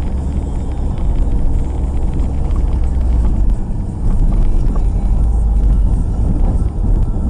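Steady low rumble of a car driving, road and engine noise heard from inside the cabin through a dashcam's microphone.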